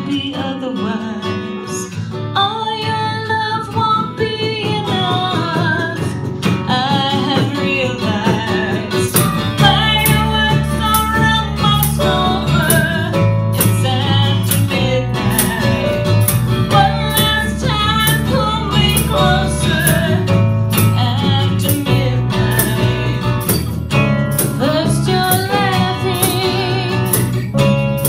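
Live band playing a pop song: a woman singing lead over strummed acoustic guitar, electric bass and percussion. The low end and a steady beat fill in about eight or nine seconds in.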